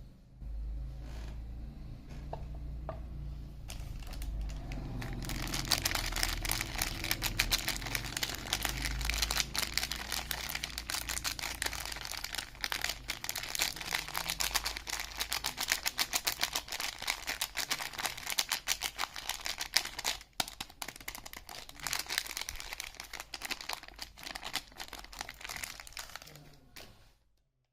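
Soap wrapper crinkling and rustling as a bar of soap is unwrapped by hand: quiet handling at first, then dense, rapid crackling from about five seconds in, stopping abruptly near the end.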